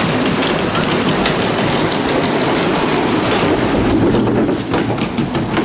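Log flume boat being hauled up the lift hill on its chain conveyor: a steady clattering of the lift mechanism.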